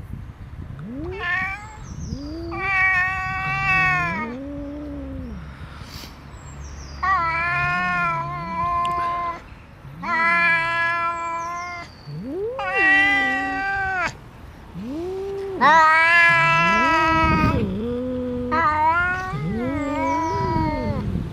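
Domestic cats yowling at each other in a standoff: about seven long, wavering yowls two or three seconds apart, with lower rising-and-falling moans beneath and between them. It is the hostile caterwauling of an unfriendly cat facing off with another.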